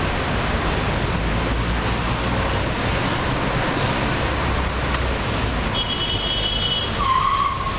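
Car driving through city streets, heard from inside the cabin: a steady rumble of engine and road noise. Near the end a short, wavering high tone sounds over it.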